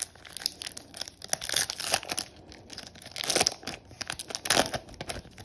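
Foil Yu-Gi-Oh booster pack wrapper being torn open and crinkled by hand, a run of crackling rips with the loudest about two, three and a half and four and a half seconds in.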